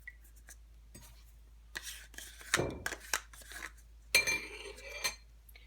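A spoon clinking and scraping against a bowl as sauce ingredients are measured in: a few soft knocks, then a sharp, ringing clink about four seconds in.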